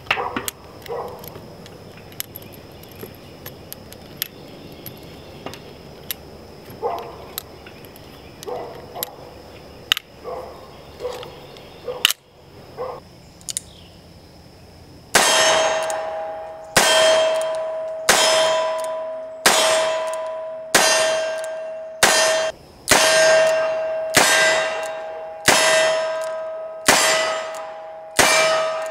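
Cartridges clicking into the cylinder of a Rock Island Armory M200 .38 Special revolver as it is loaded. From about halfway, a string of loud shots about every second and a half, each followed by a ringing clang that dies away.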